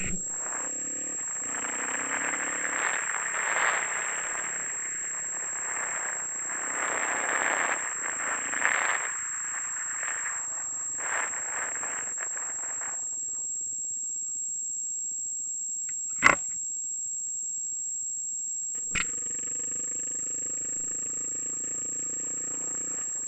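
Motorcycle ride on a dirt trail, picked up by a helmet camera. Irregular gusts of wind on the microphone fill the first half. A constant high-pitched whine runs throughout, and two sharp clicks fall in the quieter stretch. The motorcycle's engine runs steadily from about two-thirds of the way in.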